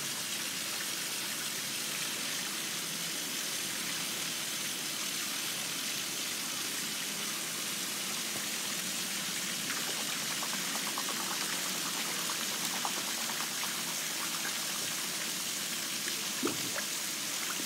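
Steady hiss of running water in a penguin pool, with a patter of light splashes in the middle and one short knock near the end.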